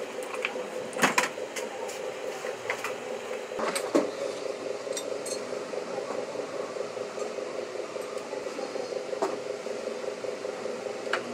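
Metal hand tools and engine parts clinking and knocking on a workbench during engine assembly, a scattered handful of sharp clinks, loudest about a second in and about four seconds in, over a steady background hum.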